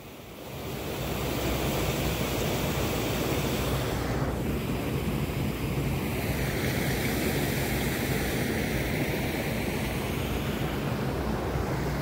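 Steady rushing noise of wind buffeting the microphone, with a low rumble underneath. It swells up during the first second and then holds even.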